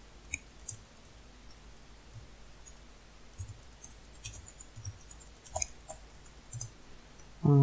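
Computer keyboard keys clicking faintly and irregularly as code is typed, a few keystrokes a second.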